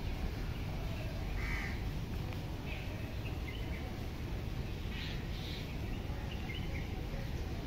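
Birds calling outdoors, with short crow-like caws scattered through, over a steady low background noise.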